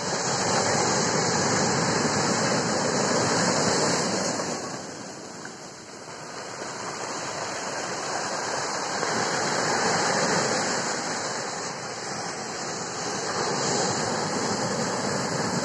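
Ocean surf breaking and washing up over a stony beach, a steady rush of water that swells, eases about five seconds in, and builds again as the next waves come in.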